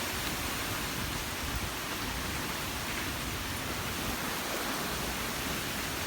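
Steady hiss of heavy storm rain falling.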